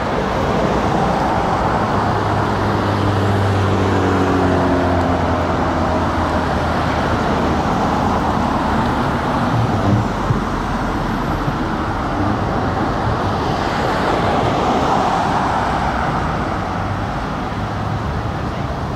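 Road traffic: cars and pickup trucks driving past close by, with a steady hiss of tyres and engines. A few seconds in, one vehicle's engine hum drops in pitch as it goes by, and another passes near the end.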